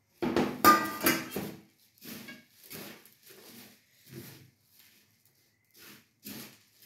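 A steel plate clattering as it is set down on a table, then puffed rice and namkeen rustling in short repeated bursts as they are tossed together by hand in a steel plate.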